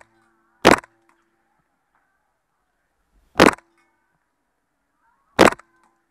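GHK G5 gas-blowback airsoft rifle fired in single shots: three sharp shots, the first under a second in and two more about two seconds apart, each followed by a short ring.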